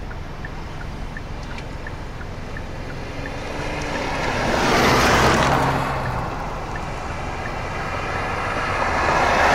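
Two vehicles passing by on the road, the first swelling and fading about four to six seconds in, the second building near the end, over a steady low rumble.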